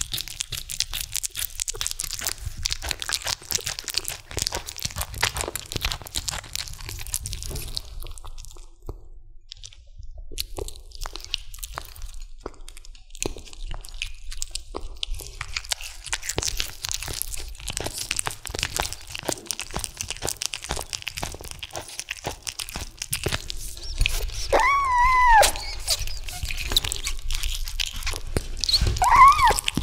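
Kitten chewing and biting at a raw chicken drumstick, a dense run of wet crunching and tearing bites that pauses briefly twice. Near the end come two short high-pitched cries that rise and fall.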